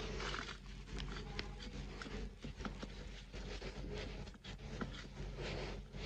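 Cloth wiping and rubbing over a toner-covered copier part, with scattered light clicks and knocks as the plastic parts are handled, over a steady low hum.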